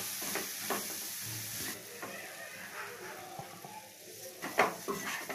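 A spoon scrapes and scoops cooked bitter gourd and potato stir-fry out of a pan into a serving bowl, in a series of short scrapes and clinks. A few louder knocks come near the end. A faint sizzle from the still-hot pan fades out about two seconds in.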